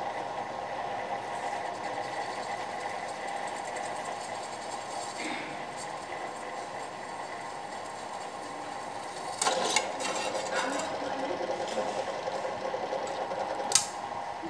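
Electric drill clamped in a lever drill stand running steadily as its bit cuts holes through a metal disc. Two sharp metallic clanks stand out, one about two-thirds of the way through and a louder one near the end.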